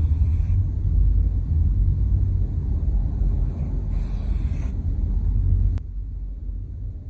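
Aerosol spray can hissing in short spurts, once at the start and again from about three to five seconds in, over a steady low rumble. A click comes just before six seconds in, and the rumble drops after it.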